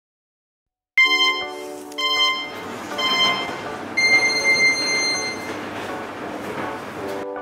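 Background music starting suddenly about a second in, with bright chime-like notes about once a second, the fourth held longer, over lower sustained notes.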